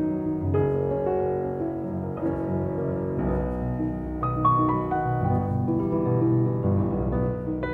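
Piano music playing a slow run of changing chords over a low bass line.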